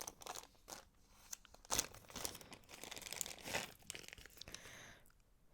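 Bead-strand packaging crinkling and rustling as it is handled, in irregular bursts that die away about five seconds in.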